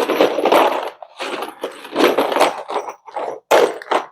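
Bed-frame assembly hardware being handled: bolts picked out and sorted, an irregular rustling and clatter in short bursts.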